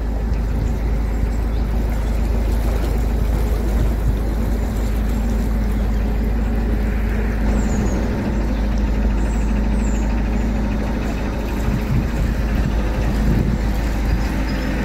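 Narrowboat's engine running steadily as the boat cruises along the canal, a constant low hum.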